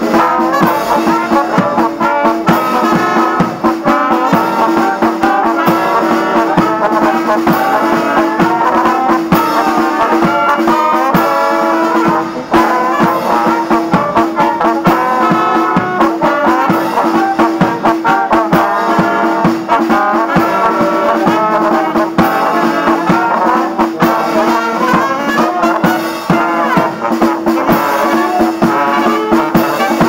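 Amateur wind band playing live in the open air: flute, alto saxophones, trumpets and trombone together, with a drum keeping the beat.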